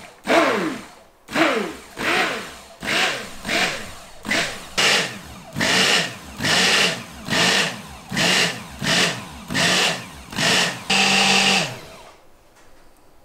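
Handheld stick immersion blender pulsed on and off in short bursts, roughly one every two-thirds of a second, as lye solution is blended into melted lamb fat to start the soap toward trace. Each burst is a motor whine; the early ones drop in pitch as the motor winds down. The last burst is the longest and the blender stops about twelve seconds in.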